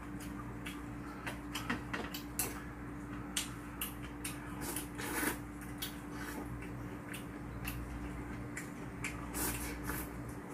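Eating sounds at a table: chopsticks and a metal spoon clicking against bowls, with noodles being slurped and some chewing. A steady low hum runs underneath.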